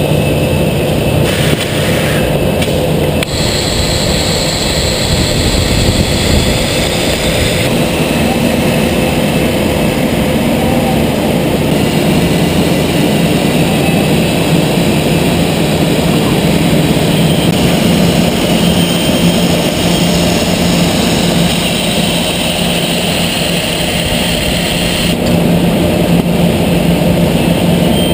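Homag BAZ 32/50K Optimat CNC machining center running its edge-banding head along a wood panel: a loud, steady industrial din with high whines that start and stop as the units cut and trim.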